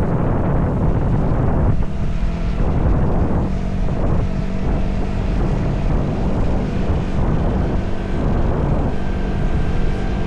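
Motorcycle engine running steadily while riding, nearly buried under heavy wind buffeting on the microphone.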